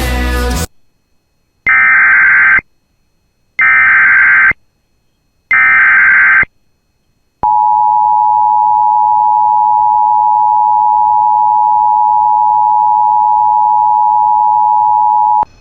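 Emergency Alert System header: three short bursts of screeching SAME data tones, each about a second long, followed by the two-tone EAS attention signal held steady for about eight seconds before cutting off. It announces an emergency warning about to be read.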